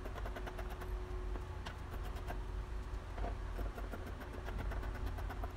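Fabric scissors cutting through cloth in a run of faint snips, over a steady low rumble and a constant faint hum.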